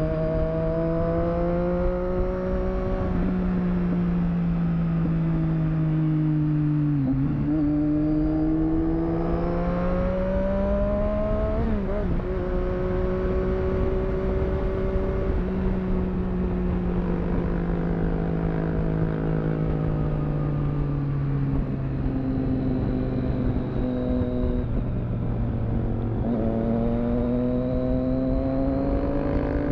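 Triumph Street Triple 675 three-cylinder engine under way on the road. Its pitch climbs slowly, then drops sharply at each gear change, about three times.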